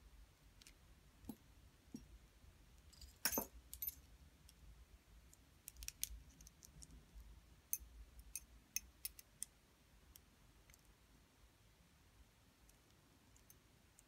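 Metal rings handled in the fingers, clicking and clinking against each other and against long fingernails in scattered sharp clicks. The loudest cluster comes about three seconds in, more follow over the next several seconds, and they thin to a few faint ticks in the last few seconds.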